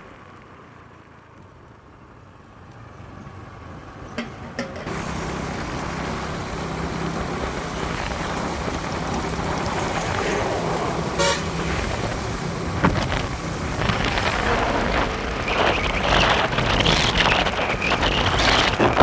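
A road vehicle is heard on the move, getting louder after the first few seconds, with a steady low engine hum and wind noise on the microphone building toward the end. There is a short horn toot about two-thirds of the way through.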